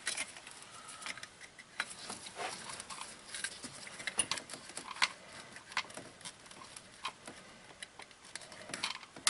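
Faint, scattered small clicks and rustles from gloved hands handling wiring and pushing plastic electrical connectors onto the new distributor of a 2000 Honda Civic.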